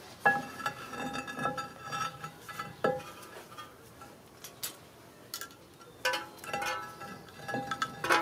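Metal clanks and clinks, each leaving a short ringing tone, from the front brake caliper and pads being worked loose and lifted off the brake disc. They come in two bursts: one starting just after the start and lasting about three seconds, and another from about six seconds in.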